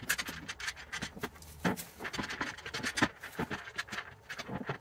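Irregular scraping and clicking as metal running-board mounting brackets and their square-headed bolts are handled and lined up in the channel under the pickup's rocker panel.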